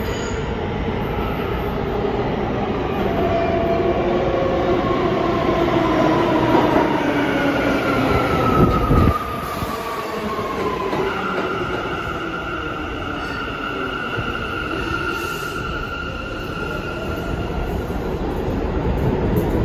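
New York City Subway C train pulling into the station, its motor whine falling in pitch as it slows. The noise drops sharply about nine seconds in, and a steady high whine follows while the train stands.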